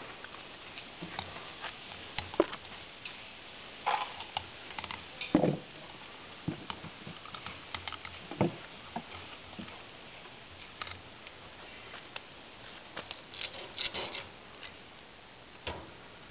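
Fish being cleaned with a knife: irregular taps, knocks and short scrapes. The loudest are a few sharp knocks about four, five and eight seconds in, and a cluster of scrapes near fourteen seconds.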